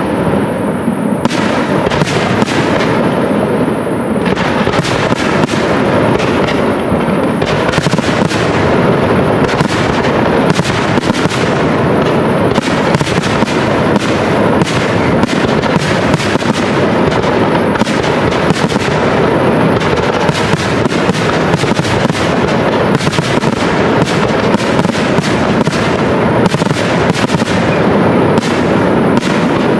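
Aerial fireworks display: shell bursts going off in a dense, unbroken barrage of many bangs a second, with crackle between them. The barrage grows thicker about eight seconds in.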